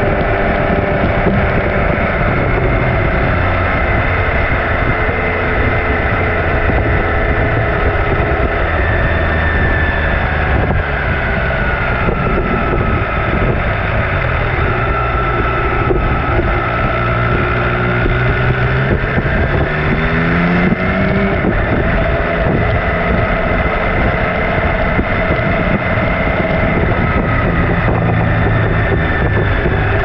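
MV Agusta Turismo Veloce Lusso's three-cylinder engine running hard on a fast ride, its note rising and falling with the throttle and climbing sharply about twenty seconds in, under heavy wind noise on the microphone.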